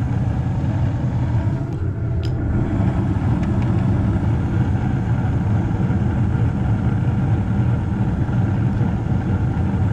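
Newly installed Carrier gas furnace running with its burners lit: a steady low rumble. Two light clicks about two seconds in.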